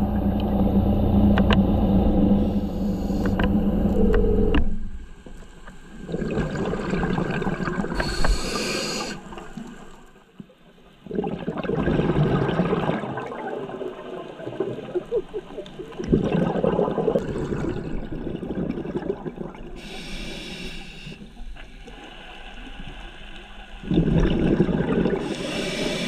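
Underwater scuba breathing through a regulator: loud rushing bursts of exhaled bubbles every few seconds, with short high hisses of inhalation between them. A steady hum runs under the first four seconds or so and then stops.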